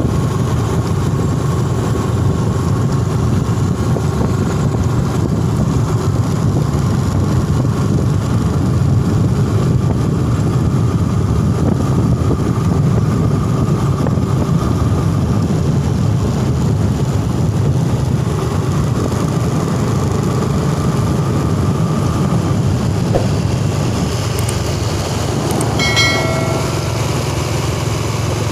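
Motorcycles riding along a road: a steady engine hum with road and wind noise. A short beep sounds a couple of seconds before the end.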